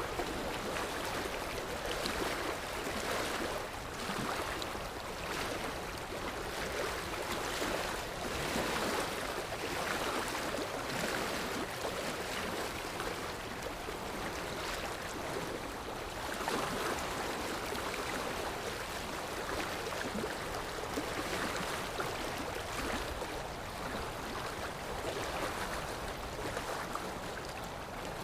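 Sea waves washing on a shore: a steady rush of surf that swells and eases every few seconds.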